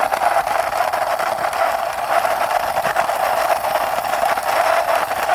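Toy R17 motorbike being rolled along by hand, giving a steady whirring noise with faint clicks.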